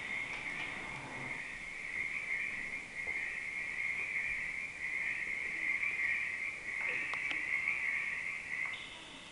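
A dense chorus of frogs calling: a continuous high-pitched massed calling held around one pitch, fading somewhat near the end.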